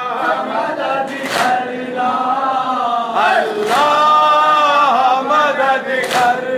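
Group of men chanting a Muharram nauha together in unison, holding long notes, with a loud unison slap of hands on chests (matam) a few times.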